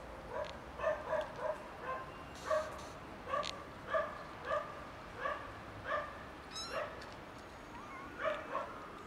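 Young kittens mewing loudly over and over, short high calls coming about every half second.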